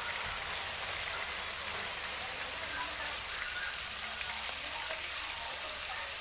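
Marinated pork chunks frying in oil in a wok, a steady sizzle.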